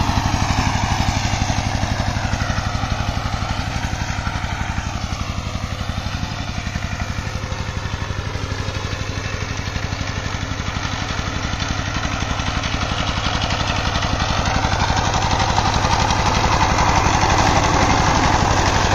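Walking tractor's single-cylinder diesel engine chugging steadily under load while its rotary tiller works the soil. The engine grows louder near the end as the machine comes close.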